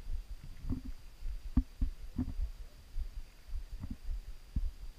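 Wind buffeting the microphone on an exposed ridge-top, giving a low rumble broken by irregular low thumps.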